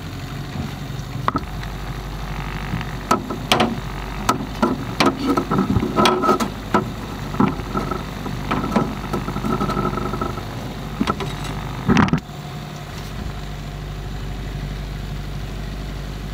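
Boat motor idling steadily, with a series of sharp knocks and clatters over it that end in a loud knock about twelve seconds in.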